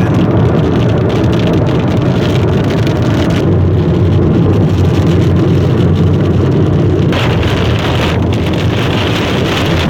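Heavy rain pelting a car's roof and windscreen, heard from inside the cabin over a steady low rumble of the car. The upper hiss of the rain eases a little about seven seconds in.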